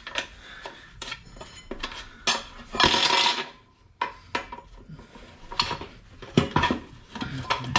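Steel tyre levers clinking and knocking against a motorcycle's alloy wheel rim as the tyre is levered off by hand, with a longer scrape about three seconds in.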